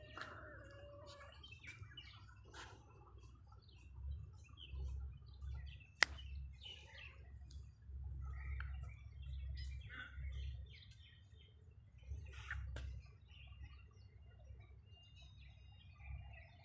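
Faint bird chirping, scattered short high chirps, over a low rumble, with one sharp click about six seconds in.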